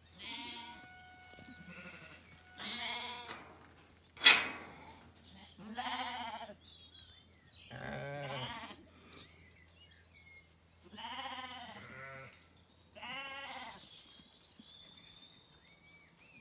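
Zwartbles sheep, ewes and lambs, bleating again and again: about six calls, each under a second long. A single sharp knock about four seconds in is the loudest sound.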